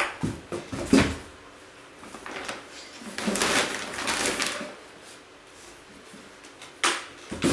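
Shoes and rubber boots being handled and packed into a cardboard box: a few knocks near the start, a stretch of rustling in the middle, and a sharp knock near the end.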